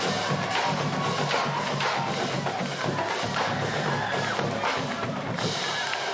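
Marching band playing, with the drumline keeping a steady, quick beat over low held notes.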